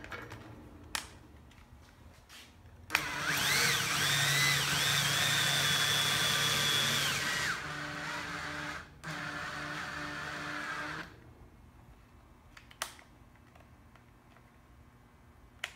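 Drill spinning the mill's Z-axis screw to run the head down its column. The motor whine rises in pitch as it spins up, holds steady for about four seconds, then carries on more quietly in two stretches with a short break, and stops about eleven seconds in. A single click follows near the end.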